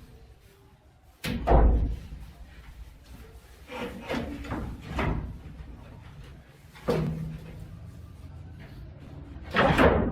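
Wooden storage drawers of a bed being slid and banged shut, several sudden knocks spread out, the loudest a little after one second in and near the end.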